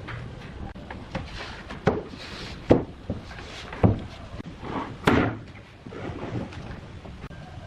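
Irregular knocks and thumps of wooden pieces being handled, with four louder ones about a second apart in the middle and lighter taps between.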